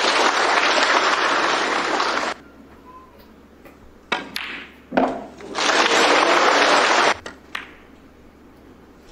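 Snooker audience applauding in two bursts, each cut off abruptly, with a few sharp clicks of snooker balls being struck in between.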